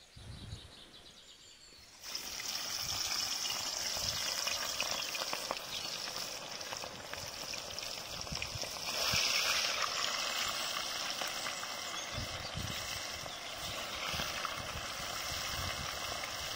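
Marinated fish pieces sizzling in hot oil in a kadai. The sizzle starts suddenly about two seconds in as the first piece goes into the oil, swells briefly about halfway through as another piece is added, then carries on steadily.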